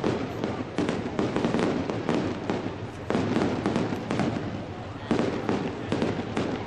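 Fireworks display going off: a dense, continuous string of bangs and crackles, with louder volleys every second or two.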